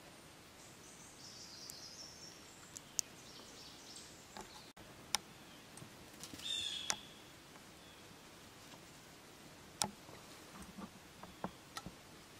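Quiet woodland with songbirds calling: a short falling song about a second in and a clear call in the middle. Several sharp clicks or snaps stand out as the loudest sounds, with a run of softer clicks near the end.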